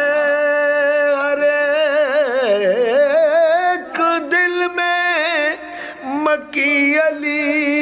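A man's voice singing a line of Urdu devotional poetry with no instrument heard, drawing out its last syllable in a long melodic run with a wavering vibrato. There is a short break about six seconds in before he sings on.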